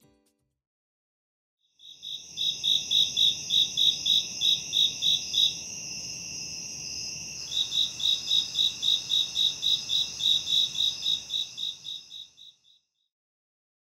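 Crickets chirping: a rapid, high-pitched pulsing chirp of about four pulses a second over a steady high trill. It starts about two seconds in, the pulsing pauses for about two seconds midway, and it fades out about a second before the end.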